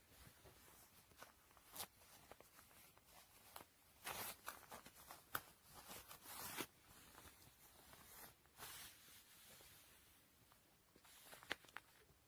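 Faint rustling and scraping with scattered soft clicks, in short irregular bursts.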